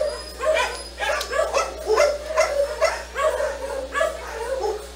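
A dog barking over and over in short, quick barks, about two to three a second without a pause.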